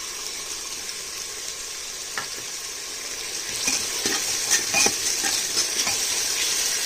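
Onion paste and ground spices sizzling in hot oil in a pressure cooker. From about three seconds in, a metal spoon stirs and scrapes through the masala, clicking against the pot, and the sizzle grows louder.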